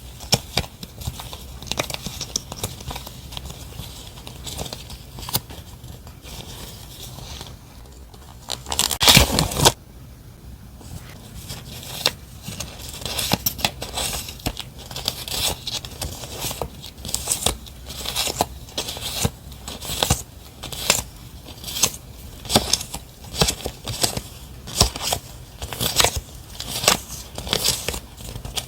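Close handling of paper and plastic stationery packaging: crinkling and scraping with small clicks. About nine seconds in there is one louder tear, and from about twelve seconds on comes a run of quick, sharp crackles, a few a second.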